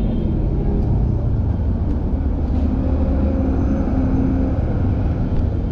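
City street traffic: buses and cars running in the road, a steady low rumble.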